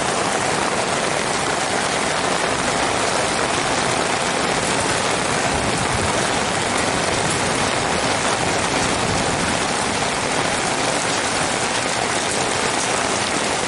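Heavy rain pouring down in a steady, unbroken downpour during a storm.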